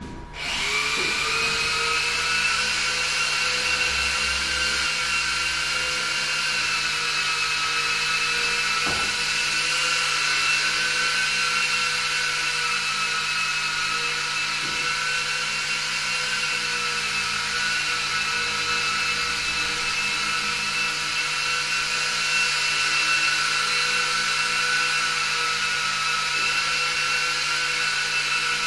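Small electric motors and propellers of a Silverlit VTO toy RC plane spinning up, then running with a steady high whine that wavers slightly in pitch.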